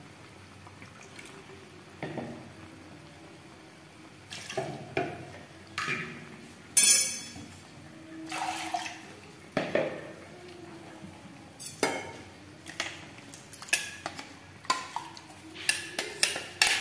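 Steel spoon scraping and knocking in a stainless-steel mixer jar as ground coconut masala paste is scooped out into the curry pot. Scattered knocks, one loud clatter about seven seconds in, then quicker spoon clinks near the end.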